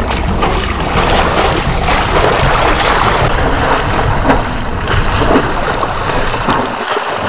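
Feet splashing repeatedly through shallow river water as a person wades and runs, over a steady rush of wind noise.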